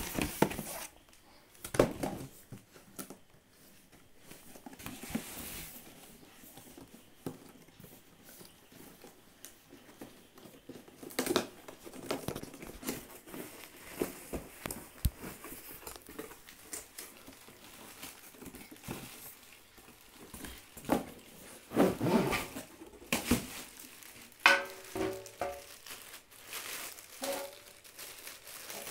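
Plastic wrapping and packaging crinkling and rustling as items are unpacked by hand, with scattered light knocks and clatters of handling.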